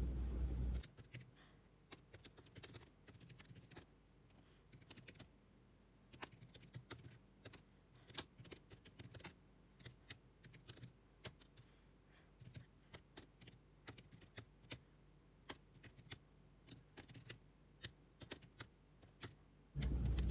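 Faint typing on a keyboard: irregular key clicks in quick runs with short pauses. A song ends in the first second and piano music comes in near the end.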